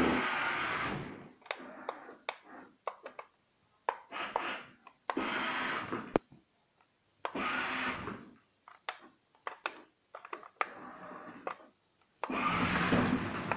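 Battery-powered ride-on toy car's electric motor whirring in about five short bursts of roughly a second each as the car drives, stops and starts again, with sharp clicks and knocks in between.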